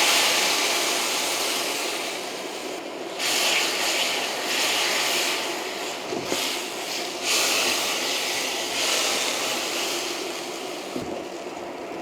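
Loud hissing from cooking, coming in surges that rise and fall with short dips between them.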